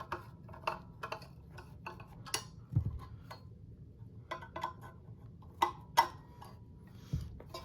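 Irregular small metal clicks and knocks as screws and ceiling fan parts are handled and tightened by hand, a few louder taps among them.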